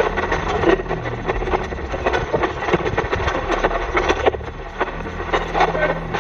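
Spirit box sweeping through radio stations, played through a speaker box: a continuous choppy stream of static and clipped scraps of broadcast sound, used to listen for spirit voices.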